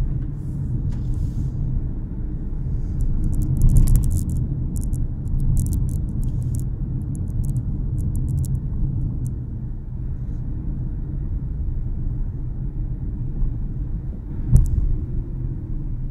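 Cabin noise of a 2018 Dacia Duster with the 1.6 SCe petrol engine, driving in fourth gear: a steady low engine and road rumble. Brief faint clicks a few seconds in, and a single knock near the end.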